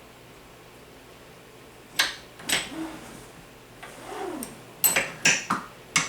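Sharp metallic clanks and clinks of a wrench against the lever hardware of a Lee Classic Turret reloading press as the lever bolt is tightened. About six separate knocks, beginning about two seconds in and bunching together near the end.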